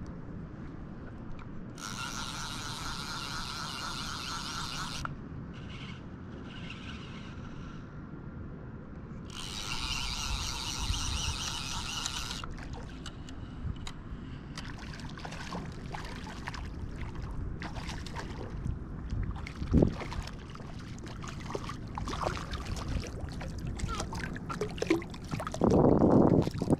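Fly reel's clicker ratcheting in two bursts of about three seconds each, with a fainter one between, as a hooked pompano is played. Then scattered water splashes, the loudest near the end as the small pompano thrashes at the surface.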